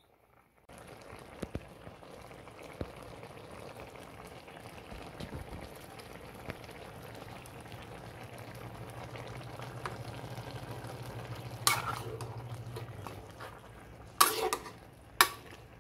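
Pork and opo (bottle gourd) cooking in a pan, a steady bubbling of the simmering sauce with small pops throughout. A few sharp clinks come near the end.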